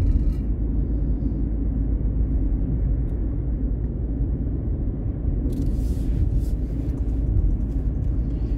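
Steady low rumble of a car driving, heard from inside the cabin as road and engine noise, with a brief patch of light clicking about five and a half seconds in.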